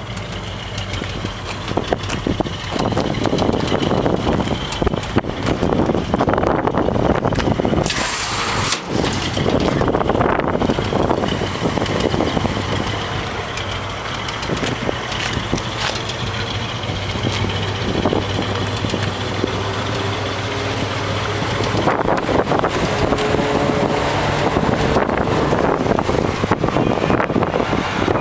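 Cadillac 500 cubic inch V8 in a 1958 Chevrolet Apache truck running, its engine speed rising and falling. There is a brief hiss about eight seconds in.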